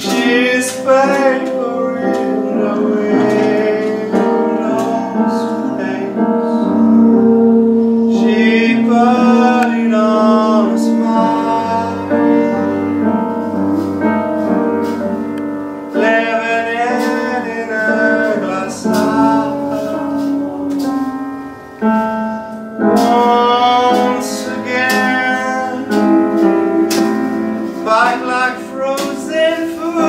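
A man singing into a handheld microphone in long, held phrases over a keyboard accompaniment.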